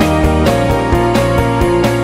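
Instrumental music with a steady beat and held notes; the bass line changes about half a second in.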